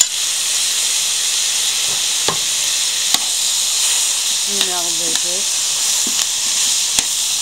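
Diced onion, carrot and fresh tomato sizzling steadily in hot canola oil in a frying pan while being stirred with a metal spoon, with a few sharp clicks of the spoon against the pan.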